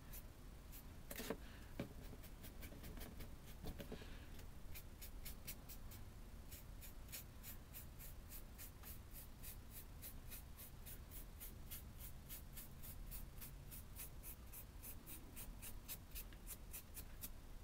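Paintbrush dry-brushing gray paint over a brick strip textured with hot glue: faint, quick scratchy strokes of the bristles, several a second, getting busier after a few seconds.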